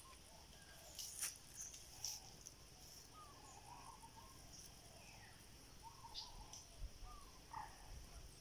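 Faint rural outdoor ambience: a steady high-pitched hum of insects, with short bird chirps scattered throughout and a couple of sharp clicks about a second in.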